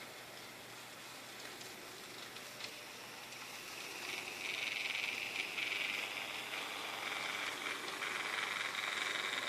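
Model freight train rolling along the track, its wheels giving a steady rattling hiss with faint clicks over the rail joints. It grows louder about four seconds in.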